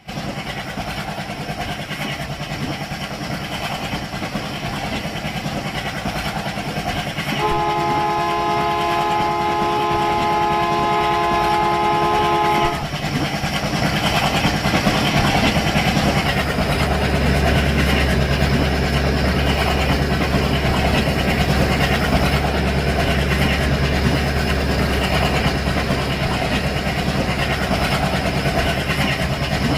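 Train running with a continuous rumble and rattle. Its horn sounds one long steady blast of about five seconds midway, several pitches at once. In the second half a heavier low engine hum comes in and stays.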